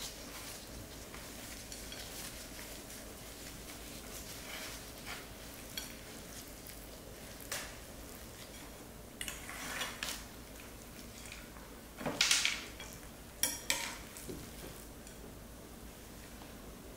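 Pots, dishes and utensils clinking and scraping now and then over a faint steady background, with the loudest clatter about twelve seconds in and a shorter one just after.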